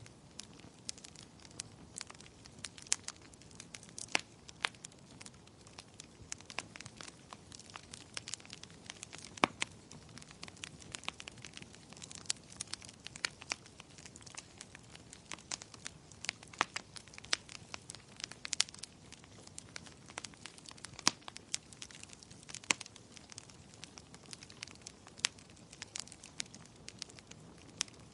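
Wood fire crackling, with frequent irregular sharp pops and snaps over a soft, steady hiss.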